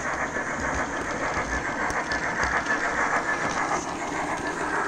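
OO gauge model trains running on the layout: a steady whirr of small electric motors and wheels rolling over the track and points.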